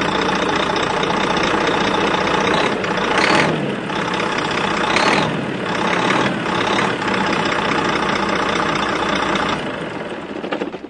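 Recorded or simulated diesel engine sound of the RC heavy equipment, running steadily with brief revs about three, five and six seconds in. It fades out near the end.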